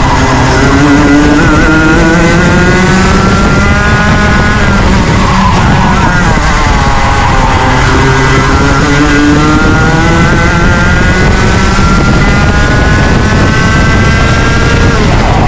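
Rotax Junior Max 125cc two-stroke kart engine running hard at race revs. Its pitch climbs for a few seconds, drops away in the middle, climbs steadily again and falls off near the end, as the kart accelerates down straights and lifts for corners.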